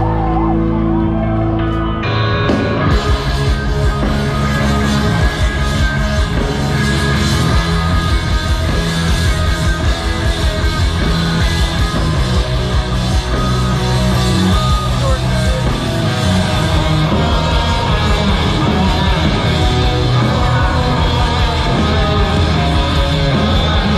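Live rock band playing loud, with electric guitars, drums and singing. About two seconds in, held chords break into the full band with drums.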